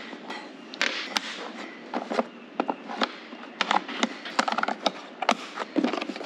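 AAA batteries being pressed into the plastic battery compartment of a digital scale and the scale handled on a hard surface: a string of short, irregular clicks and clatters.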